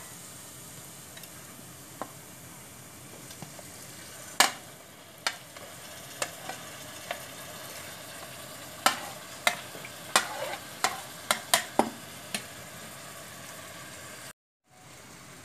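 Spiced onion-tomato masala sizzling steadily in a pressure-cooker pan while fried chicken pieces are pushed in from a chopping board and stirred. Sharp clacks and taps of a metal spoon and a wooden spatula against the pan come often, in quick runs from about halfway on, and the sound breaks off briefly near the end.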